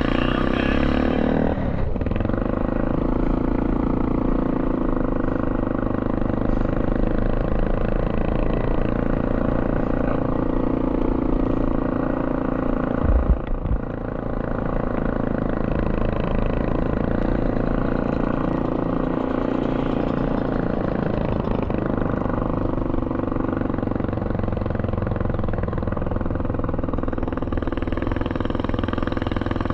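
Three-wheeled ATV engine running steadily while riding across a dirt lot, with a brief low thump about halfway through.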